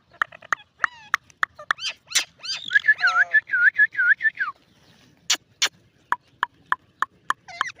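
Ringneck parakeet calling: sharp chirps and clicks, then a run of about eight quick rising-and-falling whistled notes near the middle, followed by a string of short sharp calls about three a second.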